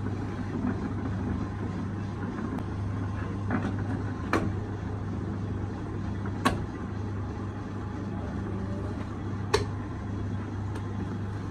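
Steady low hum of a motor-driven potter's wheel running, with three sharp smacks of wet clay being slapped down a couple of seconds apart and a few softer knocks.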